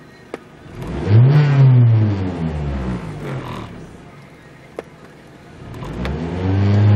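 2003 Mazda 6 engine, heard from inside the cabin, revved twice from idle: each time the pitch rises quickly and then falls back to idle over about two seconds. A sharp click comes shortly before each rev.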